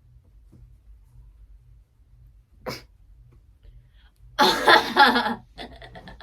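A person's sudden loud vocal outburst about four seconds in, then a quick run of short stuttering vocal sounds, over a faint low hum.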